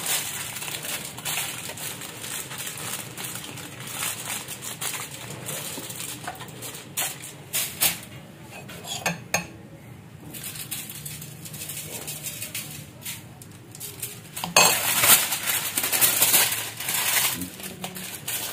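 Aluminium foil crinkling and rustling as it is folded around a rack of pork ribs on a metal baking tray, with light clinks and scrapes of a spoon and the tray. The crinkling is loudest in the last few seconds as the foil is pressed shut.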